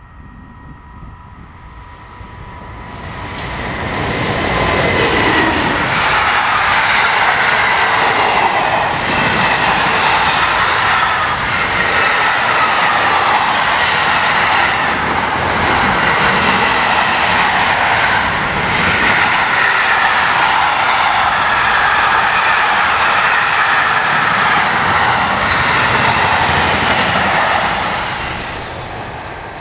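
Locomotive-hauled container freight train passing close by. A faint steady whine comes first as it approaches, then it grows loud within a few seconds. A long run of regular wheel clicks follows as the container wagons roll past, and it fades near the end.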